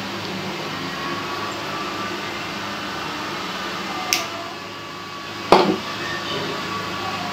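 Nail nippers snapping through a thick, overgrown toenail: two sharp cracks about a second and a half apart, the second louder, as a chunk of nail is cut off. A steady hum runs underneath.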